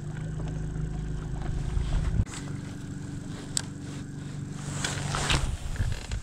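A boat motor running with a steady hum that shifts slightly in pitch about two seconds in, then stops near the end, with a few sharp knocks and scrapes against the boat in the second half.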